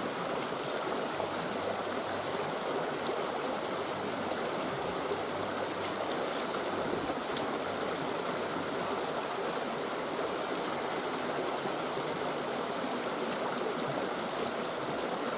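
A swollen creek rushing over rocks: a steady, unbroken wash of running water.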